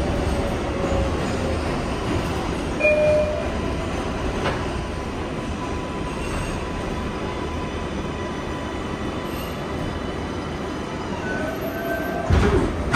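R142A subway train running on the rails: a steady rumble of wheels and car, with brief wheel squeals about three seconds in and again near the end.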